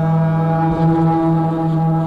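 Experimental free-noise drone music: a steady low droning tone rich in overtones. About two-thirds of a second in, a higher tone swells in alongside it over a low rumble.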